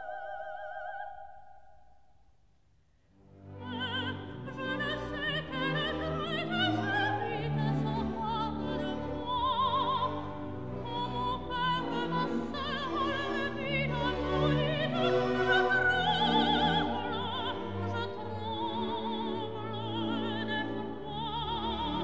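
Background music: a held note fades away, and after a short pause an operatic singer with strong vibrato begins over an orchestral accompaniment.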